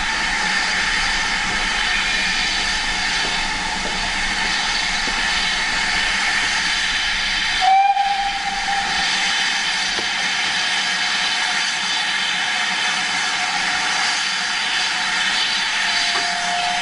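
GWR Manor-class steam locomotive standing with steam hissing loudly and steadily. About eight seconds in its whistle sounds one short blast, and a second, lower whistle tone starts near the end.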